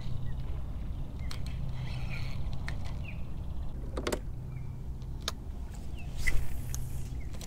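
Hand-tiller electric trolling motor humming steadily, easing off in the middle and then running again. Several sharp clicks and a few faint bird chirps sound over it.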